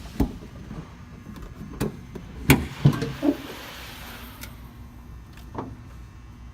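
Several sharp clicks and knocks of a car door and its fittings being handled, with a brief rush of noise about two and a half seconds in, over the low steady hum of the Maserati Ghibli's engine idling.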